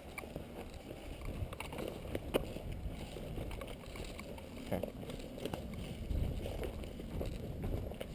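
Footsteps crunching through dry leaf litter and twigs, irregular crunches with a few sharper snaps, over a low rumble of movement on the microphone.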